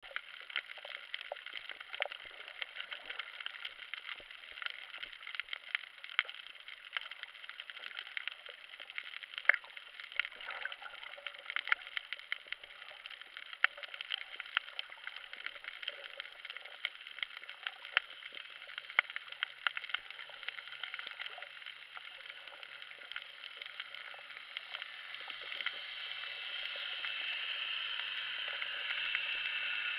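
Underwater sound over a coral reef, muffled through a camera's waterproof housing: a steady hiss peppered with a dense, irregular crackle of sharp clicks. A faint low hum comes and goes from a bit past the middle, and the hiss swells near the end.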